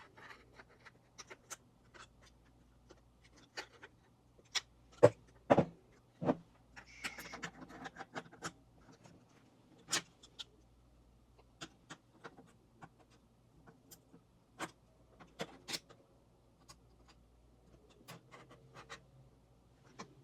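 Scattered clicks, taps and knocks of metal and plastic camera rig hardware being handled and fitted together, the loudest a few sharp knocks around five to six seconds in, with a brief rustling scrape about seven seconds in.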